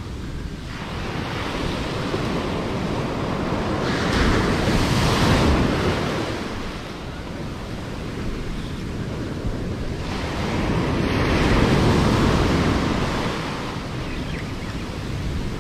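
Ocean surf breaking and washing up the sand, swelling twice, with wind buffeting the microphone.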